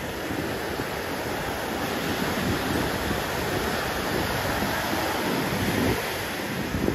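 Pacific Ocean surf breaking and washing up a sandy beach in a steady rush that swells and eases, with low gusts of wind on the microphone.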